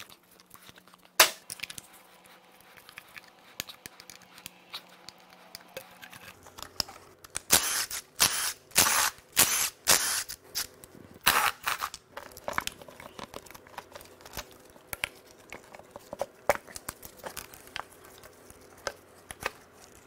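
Hand tools working on an engine: a sharp click about a second in and scattered plastic clicks and taps, then from about seven and a half seconds a run of ratchet strokes, each a short burst of clicking, as the intake manifold bolts are loosened, with lighter clicks and taps after.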